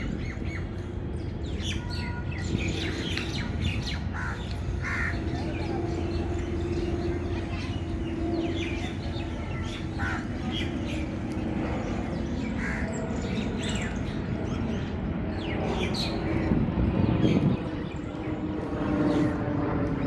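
Many birds calling and chirping in short, scattered calls, some of them harsh caws, over a steady low hum.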